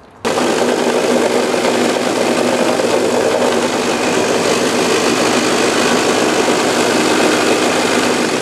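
Bench-top edge belt sander running steadily, wood held against the moving belt: a steady motor hum under an even sanding hiss, cutting in abruptly about a quarter second in.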